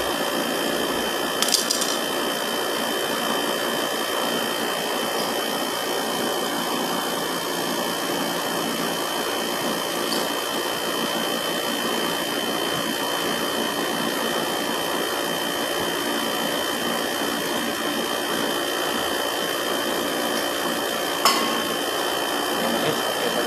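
Split-type air conditioner outdoor unit running: the compressor and condenser fan give a steady mechanical hum with a steady high whine. Two brief knocks, one about a second and a half in and one near the end.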